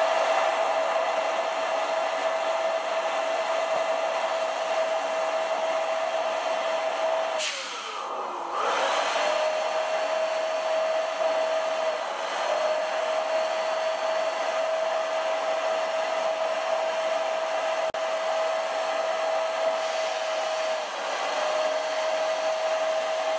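Electric air pump running steadily with a whining hum as it inflates a large vinyl beach ball. About eight seconds in it briefly winds down and comes back up to speed, and it dips twice more for a moment later on.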